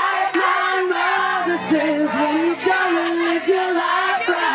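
Music with singing: a melody of long held notes.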